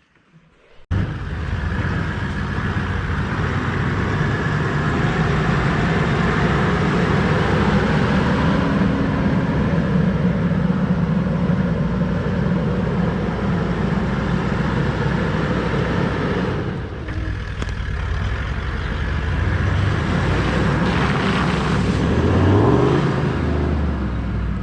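Four-wheel-drive vehicle on the move, its engine running steadily under a wash of tyre and road noise; the sound cuts in suddenly about a second in. Near the end the engine revs up.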